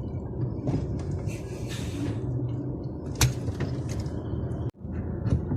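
DAF truck's diesel engine running at low speed, heard from inside the cab, with a few sharp knocks and rattles; the sound drops out briefly about three-quarters of the way through.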